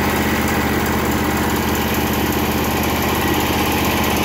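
Exmark walk-behind lawn mower's engine running steadily at an even speed.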